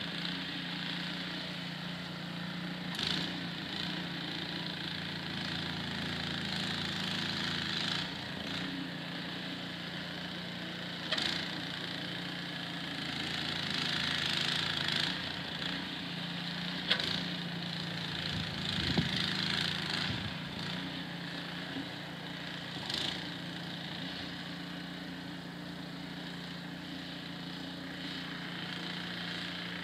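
Small engine running steadily at an even pitch, with a hiss over it that swells and fades and a few sharp clicks.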